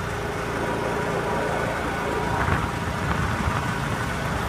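Steady car road and engine noise heard from inside the cabin while driving.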